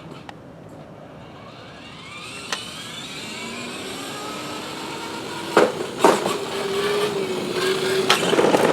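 Electric motor of a kids' ride-on toy car whining as it speeds up, rising in pitch and then holding steady. Loud, short scrapes come about five and a half, six and eight seconds in, as the wheels slide while the car is whipped into a drift.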